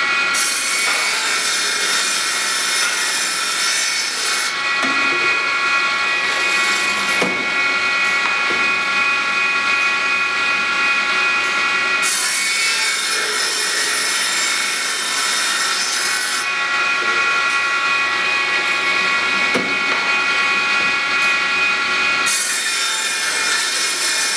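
Circular rip saw for pallet planks, its blade running with a steady high whine and cutting wood in repeated passes. Each cut adds a harsh, hissy sawing noise: long cuts about a second in, about twelve seconds in and near the end, with a short one in between, the blade running free between them.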